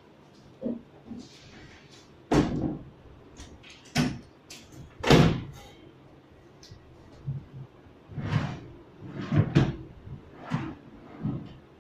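Wooden wall-folding Murphy bed being folded up into its cabinet: a series of knocks and bumps of wooden panels, the loudest about five seconds in.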